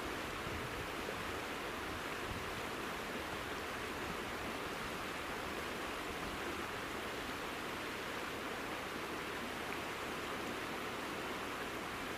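Steady, even rush of flowing mountain river water.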